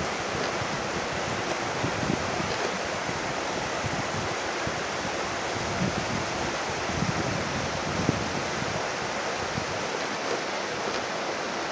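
Steady rush of a shallow river flowing over gravel and rocks, with uneven low wind buffeting on the microphone.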